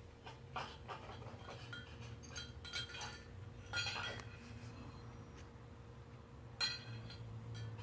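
Cat eating from a dish, with small clinks and clicks against the dish in short clusters; the sharpest comes about six and a half seconds in.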